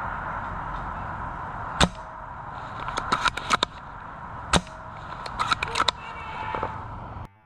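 Airsoft guns firing: two sharp single shots about three seconds apart, with short runs of quicker, fainter cracks around and between them, over a steady background hiss. The sound cuts off abruptly near the end.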